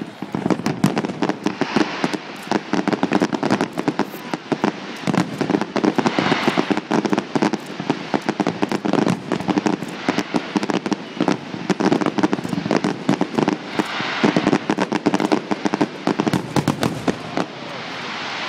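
Fireworks display: a dense, unbroken barrage of shell bursts, many sharp bangs a second.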